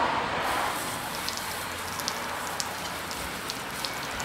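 Water from a hose spraying onto a metal clamp, rinsing off the degreaser: a steady hiss of spray with scattered spatters of drops.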